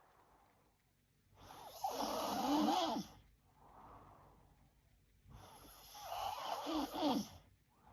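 A young woman snoring in her sleep: two loud snores about four seconds apart, each lasting about a second and a half, with a softer breath between them.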